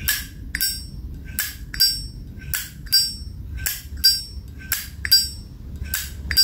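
Zippo lighter lid being flicked open and snapped shut over and over, a series of sharp metallic clicks with a short ring, about two to three a second.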